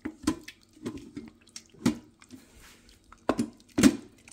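Wooden spoon mashing thick cooked curry in a stainless steel Instant Pot inner pot: a string of irregular wet squelching strokes, roughly two a second, the loudest two near the end.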